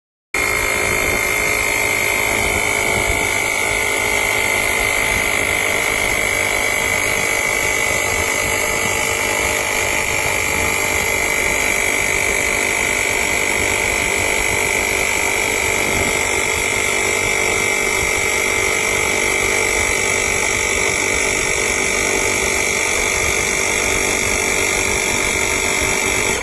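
Fanttik X8 APEX cordless tire inflator's compressor running steadily, a constant mechanical buzz with a high whine, starting abruptly just after the beginning.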